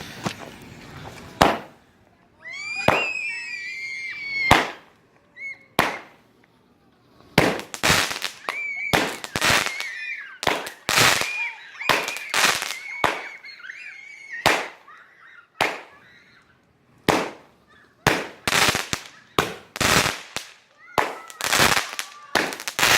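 Black Cat 'High Flyin' 24-shot firework cake firing: a string of sharp shots, a few spaced seconds apart at first and then coming faster in a rapid run. Wavering high tones sound between some of the shots.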